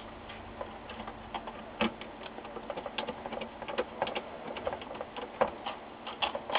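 Hand screwdriver driving screws to fasten a circuit board into a sheet-metal monitor chassis: irregular light clicks and ticks, denser from about a second in.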